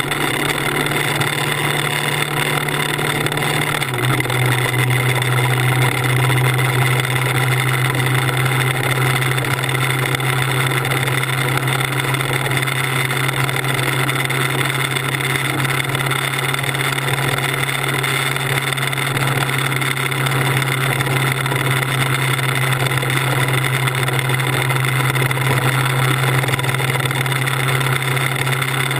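Motorcycle engine running at a steady cruising speed, with wind and road noise. Its note steps down a little about four seconds in, then holds steady.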